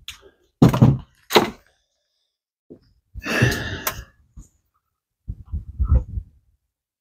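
Dull thunks and knocks of hands and parts being handled in a car's engine bay: two heavy thuds in the first second and a half, a longer scraping rattle a little after the middle, then a quick run of low knocks near the end.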